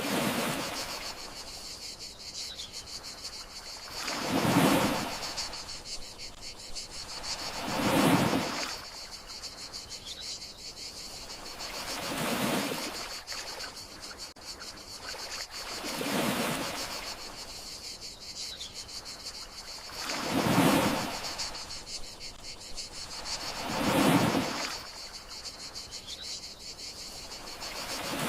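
Gentle sea waves washing ashore in swells about every four seconds, over a steady high chirring of crickets.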